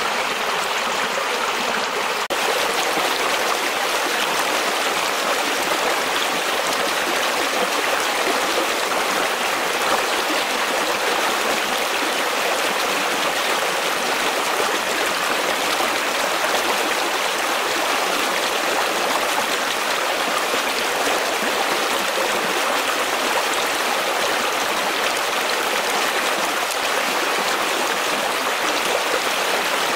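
A shallow karst stream in spring high water, rushing steadily and churning white over stones and leaf litter.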